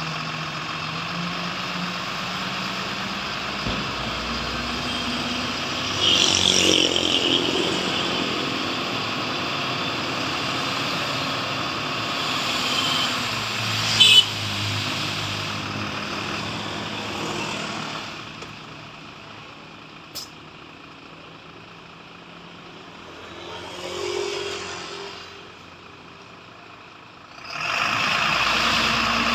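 Mitsubishi dump truck's diesel engine running steadily as the hydraulic hoist tips the loaded bed up and the sand slides off, with a sharp knock about halfway through. The engine drops to a quieter idle about 18 s in and picks up loudly again near the end.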